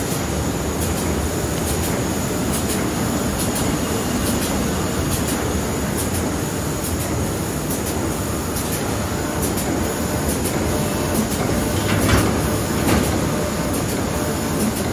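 High-speed sheet laminating machine running: a steady loud mechanical rumble with light clicking from its rollers and sheet feed, and a couple of louder knocks near the end.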